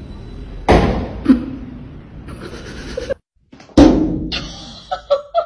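Two loud thuds about three seconds apart, each dying away slowly, with a sharper knock just after the first.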